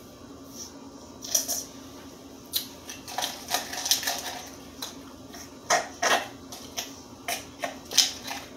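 A person drinking a thick whey protein shake from a clear plastic cup: irregular short sips and swallows with small clicks and taps of the cup, starting about a second in, over a low steady hum.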